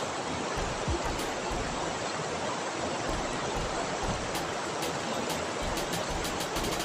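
Steady rush of a river running high in flood, an even wash of water noise with no pauses.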